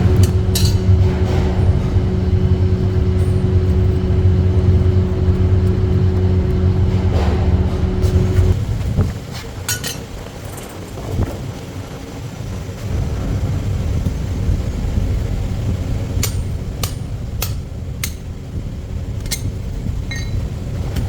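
A machine motor runs with a steady low hum, then stops about eight seconds in. Metal pieces clink and tap after that, with a cluster of sharp taps near the end.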